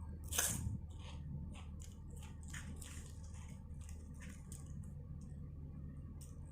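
Close-up eating sounds: someone chewing and crunching a mouthful of seafood papaya salad, a string of short crunches and wet smacks, the loudest about half a second in.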